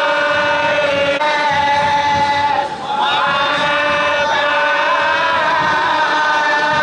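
Devotional chanting in long held notes, with a new phrase sliding up in pitch about three seconds in.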